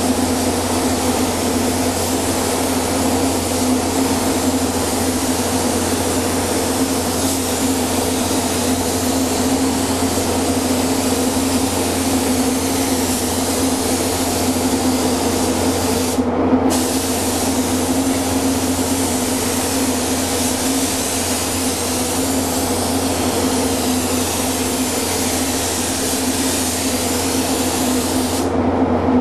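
Gravity-feed paint spray gun hissing steadily as it sprays the hull, over a steady low hum. The trigger is released briefly about halfway through, and the hiss stops near the end.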